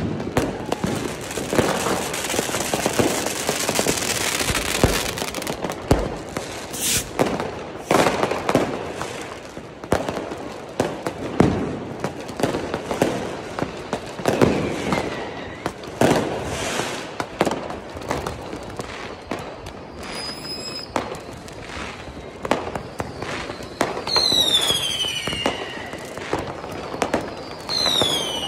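Fireworks and firecrackers going off close by in a street: repeated sharp bangs and crackling over a hiss of burning fireworks. Near the end come two falling whistles from whistling fireworks, each followed by more bangs.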